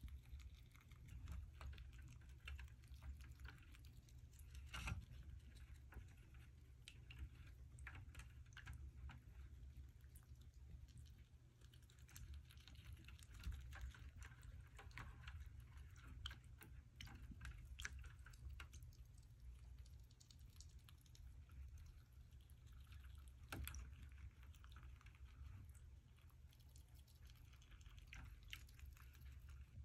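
Faint, irregular clicks, small water splashes and chewing as pet rats dip into a shallow plastic dish of water for peas and corn, over a low steady hum. Two sharper clicks stand out, about five seconds in and near the end.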